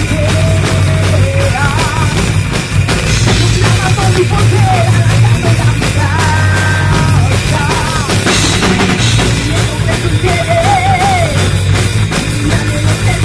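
Loud rock music with a drum kit and a melody line over it.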